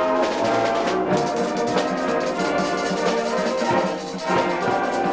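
A school band playing, with brass instruments such as trombones and tubas standing out in sustained chords and some percussion hits.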